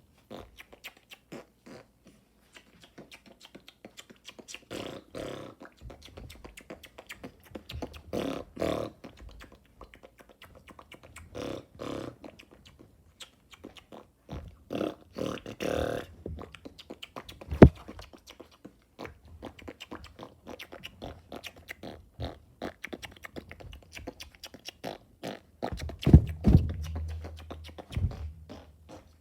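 Close-up ASMR mouth noises: a steady patter of tongue and lip clicks and smacks, broken by several longer rasping bursts, one loud sharp pop about two-thirds of the way through, and a low rumbling stretch near the end.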